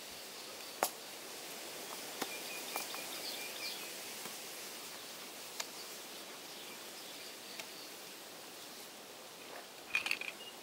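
Outdoor ambience: a steady faint hiss with a few faint high bird chirps and some sharp clicks, a small cluster of them near the end.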